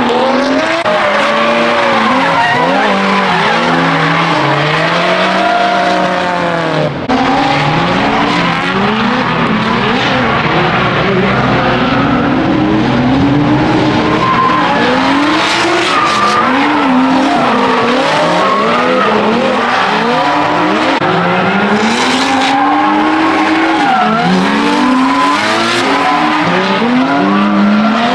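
Drift cars sliding through corners in tandem, their engines revving hard and rising and falling in pitch again and again, with tyres screeching underneath. The sound breaks off briefly about seven seconds in and carries on.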